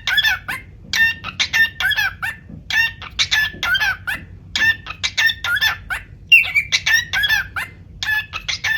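Cockatiel singing: short chirping, whistled phrases repeated about once a second, each a quick string of sharp notes around a whistle.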